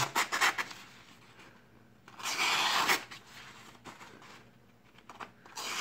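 Freshly sharpened folding pocket knife slicing through a sheet of printer paper: a papery hiss of the blade cutting, a quick cut at the start and a longer one about two seconds in. It is a paper-slicing test of the newly finished edge.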